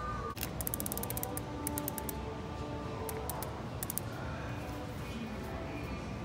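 Background music, with bursts of rapid clicking from a Strata Maxx fishing reel being cranked by hand, starting about half a second in and coming again a few times.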